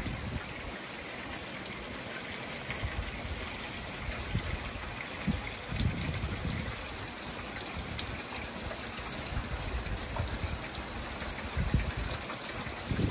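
Steady rain falling, an even hiss with scattered drop ticks, broken by irregular low thuds, the strongest about halfway through and near the end.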